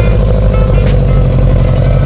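Subaru WRX's turbocharged flat-four engine idling with a steady low rumble.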